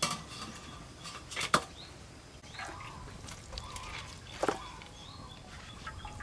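Wire-mesh strainer knocking against a metal tray as boiled pork leg pieces are tipped onto it: three sharp clinks, the loudest about a second and a half in, another about four and a half seconds in.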